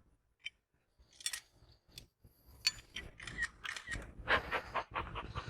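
Wooden hive frame being pried loose from a beehive box with a hive tool: a few sharp clicks, then a run of quick scraping, cracking strokes from about halfway through.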